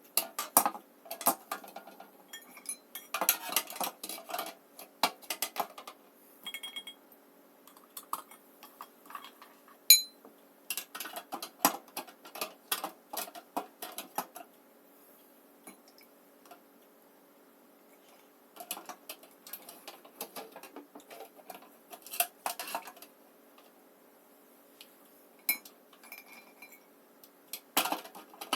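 Lipstick and lip-gloss tubes clicking and clinking as they are picked up and set one by one into the slots of a lipstick organizer, in irregular clusters with a few short pauses.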